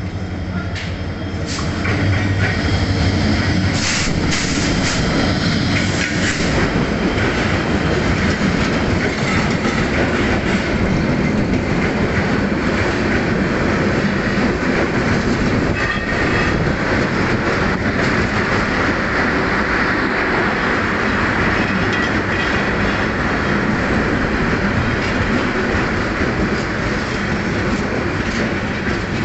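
An intercity express's EMD GT38ACL diesel-electric locomotive passes close, with a low engine hum and sharp clicks over the rails in the first few seconds. Then the passenger coaches roll by in a steady loud rumble of wheels on rail, and a high wheel-and-brake squeal builds from about halfway as the train arrives.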